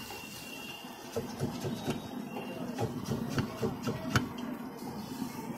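Irregular clinks and knocks of metal cooking utensils against a street stall's iron griddle and steel pot, several a second for a few seconds, the sharpest one about four seconds in.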